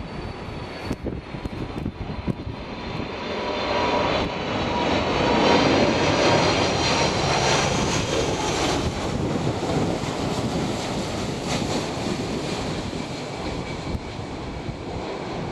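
Boeing 747-400 freighter's jet engines running as it passes, growing louder to a peak about six seconds in and then easing off slightly, with a high whine over the rumble.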